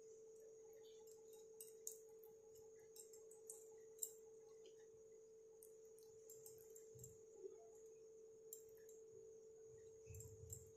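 Near silence: a faint steady hum-like tone, with a few soft clicks.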